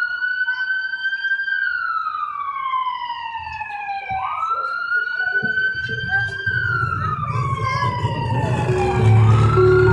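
A vehicle siren wailing in slow cycles, its pitch rising quickly and then sinking slowly, about two full cycles. Music comes in near the end.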